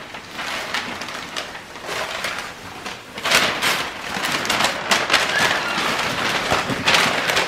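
Christmas wrapping paper being torn and crumpled, a dense crackling rustle that gets louder about three seconds in.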